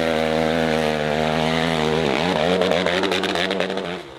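Dirt bike engine revving hard under load on a steep climb. The note sags about halfway and climbs again, then crackles before cutting off suddenly as the bike loops over backward.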